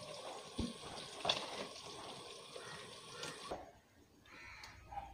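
Faint steady sizzle of fish frying in hot oil, with a few light clicks, stopping abruptly about three and a half seconds in.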